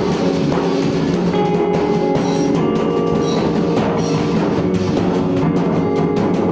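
Music with drums and percussion, playing at a steady level.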